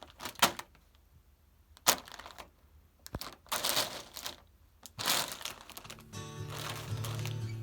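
A bag of paprika crisps being handled: short bursts of crinkling and crunching, a few seconds apart. Music comes in about six seconds in.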